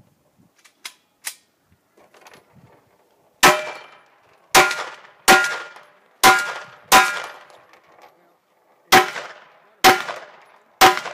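A firearm fired eight times in quick strings at targets: five shots about a second apart, a short pause, then three more. Each shot has a brief ringing tail.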